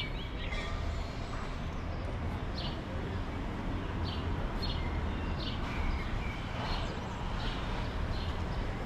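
Outdoor town street ambience: a steady low rumble, with a bird chirping again and again.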